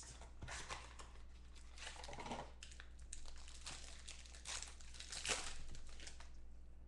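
Clear plastic wrapper on a pack of trading cards crinkling and crackling as hands tear it open and pull it off, in a run of rustles with the loudest crackle about five seconds in, dying down near the end.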